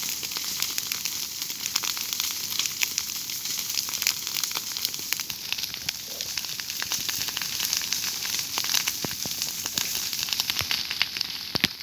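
Dry grass and leaf litter burning along a low fire front: a steady hiss with a dense run of sharp crackles and pops.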